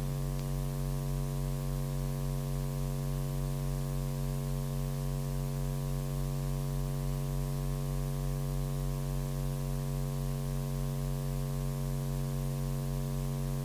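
Steady electrical mains hum in the sound system's audio line: a low buzz of several even tones that does not change.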